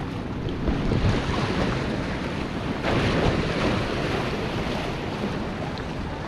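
Wind buffeting the microphone: a steady rushing noise that gusts louder about a second in and again about three seconds in.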